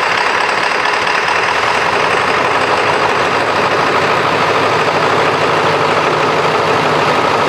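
Ford 7.3L Powerstroke V8 turbo-diesel idling steadily just after being brought back to life, still running a little poorly from air left in the fuel lines after the tank was run dry.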